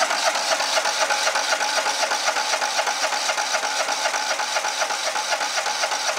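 Kohler Command 23 HP V-twin (CV23S) lawn tractor engine cranked over steadily by its electric starter without starting, with an even, fast rhythm. This is a compression test on the starter-side cylinder, which builds to about 170 psi, a healthy reading.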